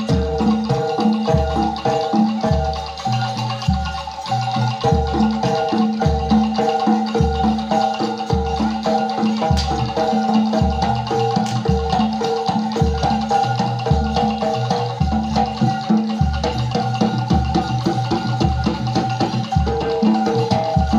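Jaranan gamelan music: metallophones play a repeating pitched melody over steady low drum and gong strokes about once a second.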